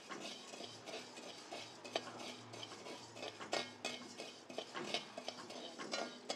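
Metal spatula scraping and clinking against a metal kadai as coarse rock salt is stirred and dry-roasted, with irregular scrapes and clicks as the crystals skitter across the pan.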